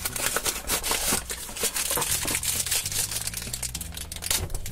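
A small cardboard toy box being torn open, then a crinkly plastic wrapper crackling as it is pulled apart, with a dense run of irregular crackles and rustles.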